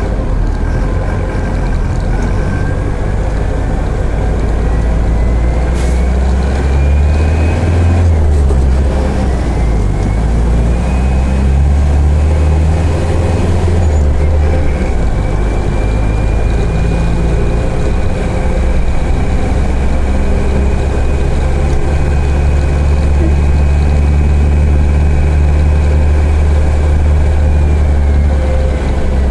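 Mercedes-Benz OF-1418 bus diesel engine pulling under acceleration through the 6-speed gearbox, heard from inside the bus. A high whine climbs with the revs, drops at two gear changes about 8 and 14 seconds in, then holds steady at cruising revs before easing off near the end.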